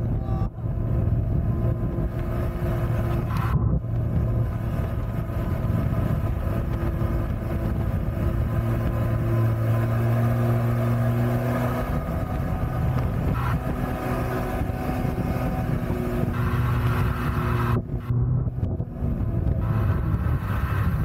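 MotoJet mini jet boat's engine running steadily as the boat travels down the river, a constant drone with a couple of brief dips.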